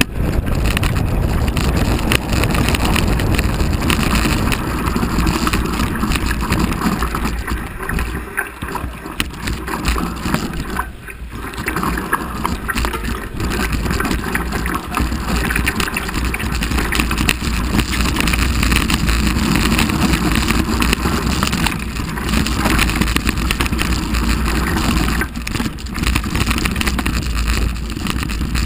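Mountain bike riding fast downhill over a rough, stony dirt trail: continuous tyre crunch and rumble over gravel and rocks, with the bike clattering over bumps. Wind buffets the mounted camera's microphone.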